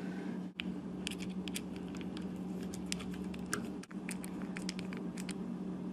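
Small, irregular sharp clicks and taps of small prosthetic finger parts being handled and fitted by hand, over a steady low hum.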